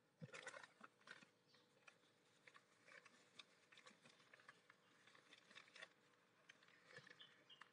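Faint crinkling and rustling of a plastic bag and crumpled brown wrapping paper as hands unwrap a chrome handlebar end weight, in a string of irregular small crackles that is densest just after the start.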